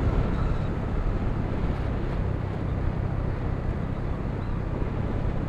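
Motorcycle riding at a steady speed, its engine running evenly under wind rushing over the microphone.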